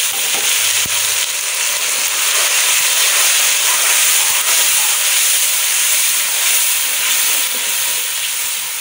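Tomato paste sizzling loudly in hot oil with fried onions, garlic and green chillies as a steel ladle stirs it. The steady hiss eases slightly near the end.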